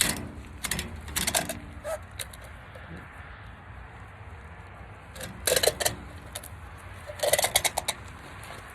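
The inner core of a pull-on rubber grip sleeve being pulled out by hand as the sleeve tightens onto a wheelbarrow handle. It makes rapid rattling, crackling runs, several short ones and then two longer ones near the end, one pull after another.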